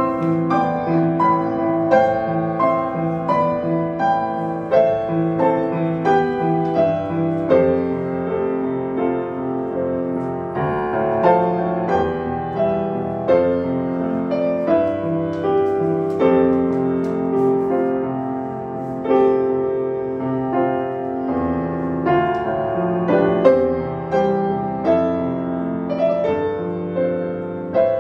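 Grand piano played solo: a melody over sustained chords, with a new note or chord struck about every half second.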